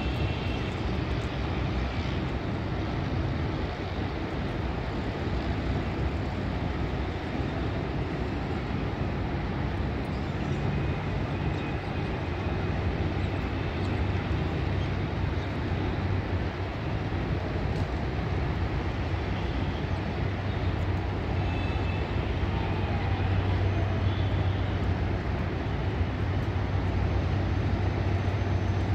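HGMU-30R diesel-electric locomotive pulling a passenger train slowly in, its engine a steady low drone that grows a little louder over the last several seconds as it nears.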